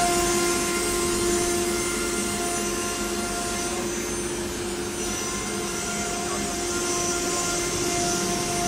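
The STYLECNC STM1325D ATC CNC router's spindle is running and carving a relief pattern into an MDF sheet. It gives a steady high whine over the rasp of the bit cutting the board.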